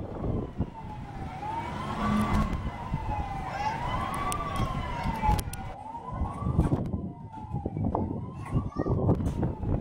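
Emergency vehicle siren wailing, its pitch rising and falling slowly about every two seconds, over a rumbling background with scattered knocks.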